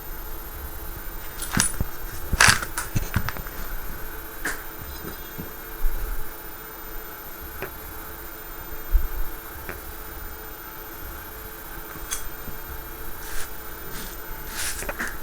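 Scattered sharp clicks and knocks from objects being handled, the busiest cluster about two seconds in, over a steady low background hum.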